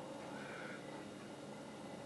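Faint dry-erase marker drawing on a whiteboard, over low room hiss.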